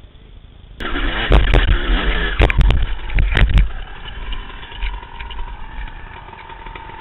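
Dirt bike engine suddenly revving loud about a second in, with several sharp knocks and clatter mixed in, then dropping to a lower, steadier running note after about three seconds.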